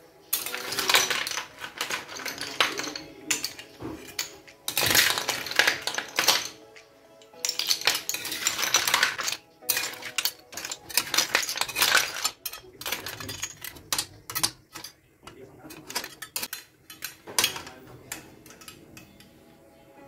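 Small liswit seashells clattering and clinking together against cookware or dishes, in dense bursts of a second or more with short pauses between them.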